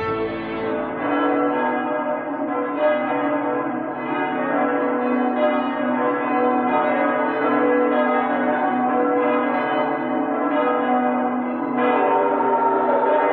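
Church bells ringing a wedding peal, many bells struck in turn and ringing on over one another, louder near the end.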